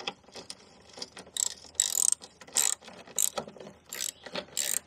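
Socket ratchet wrench clicking in a handful of short bursts as its handle is swung back and forth, tightening a scraper-blade nut.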